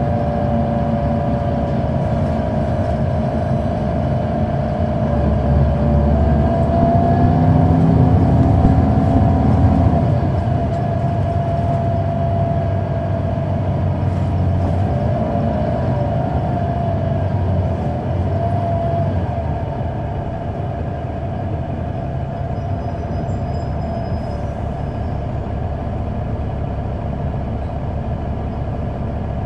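Inside a Neoplan AN459 articulated diesel bus on the move, its Caterpillar C9 ACERT inline-six running with a steady whine over the rumble. The engine pulls harder and louder from about five seconds in, drops off suddenly around ten seconds, then runs on more quietly, easing again near twenty seconds.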